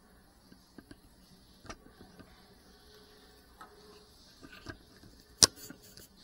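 Close handling noise of a small camera: scattered light clicks and taps, with one sharp click about five and a half seconds in, over a faint high-pitched hiss.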